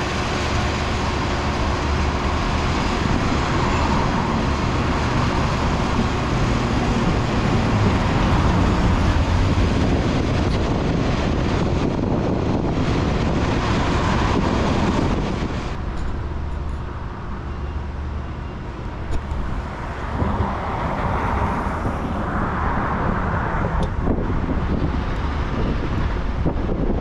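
Road traffic passing close by, a steady rush of tyres and engines that eases off about fifteen seconds in, leaving quieter background traffic.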